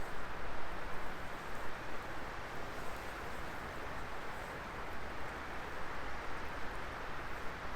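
Wood fire burning with a steady hiss and rush, without distinct pops or crackles.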